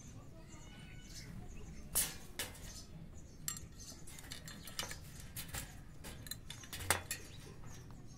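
Scattered sharp clicks and light metallic clinks as an Alexandrine parakeet climbs about its wire cage, its beak and claws gripping the bars. There is a louder click about two seconds in and another near the end.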